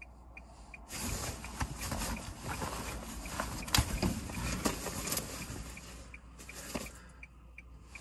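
Rustling and scraping of a padded winter jacket as hands pat and dig through its pockets, searching for car keys that are missing.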